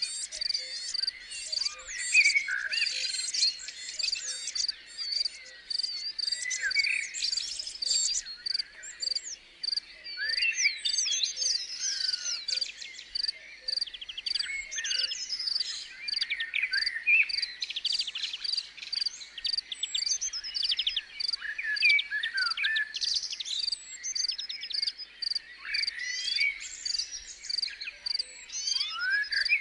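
Several wild birds singing and calling: many short chirps and warbling phrases, over an evenly repeated high chirp.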